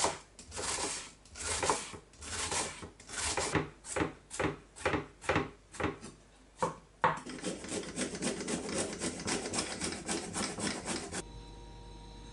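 Chef's knife dicing an onion on a wooden cutting board, about two cuts a second, then quickly chopping garlic at about five strokes a second. The chopping stops near the end, leaving a faint steady hum.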